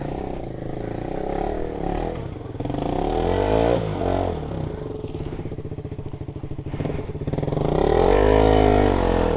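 Motorcycle engine running at low speed, the revs rising and falling twice: briefly about three to four seconds in, and in a longer swell near the end.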